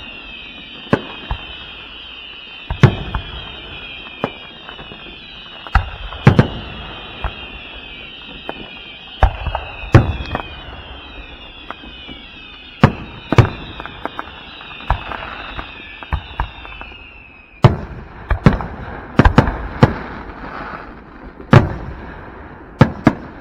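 Aerial fireworks display: a steady run of sharp bangs at irregular intervals, with many high whistles sliding down in pitch at once. The whistles stop about two-thirds of the way through while the bangs carry on.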